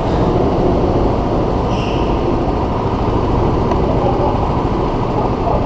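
Go-kart engines running steadily, a dense low drone at an even level.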